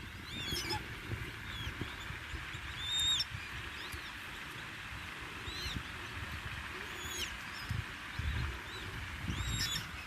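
Young waterfowl chicks peeping: short, high, arched calls repeated every second or two, over a low rumble.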